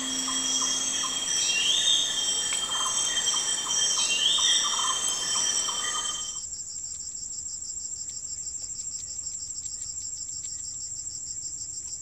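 Borneo rainforest soundscape: a dense chorus of insects in several high bands, a call that sweeps up and then holds (twice), and pulsing calls lower down. About six seconds in it gives way to an oil palm plantation recording, where a single steady high insect drone is left and the rest of the chorus is gone. The missing frequencies are the sign of lost species that acoustic surveys measure.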